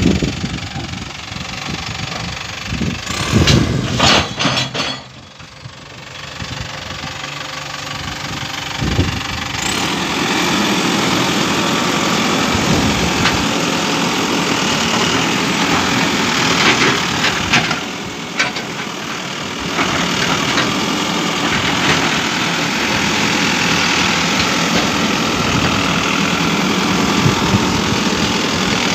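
Diesel engine of a Mahindra EarthMaster VX backhoe loader running close by, with a few knocks about four seconds in, then running steadier and louder from about ten seconds on.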